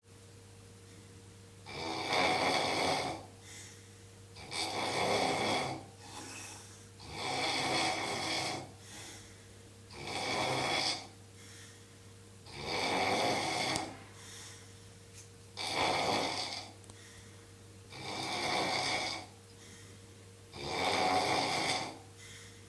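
A man snoring very loudly in deep sleep, with long rasping snores coming in a slow, regular rhythm, about one every two and a half to three seconds, eight in all.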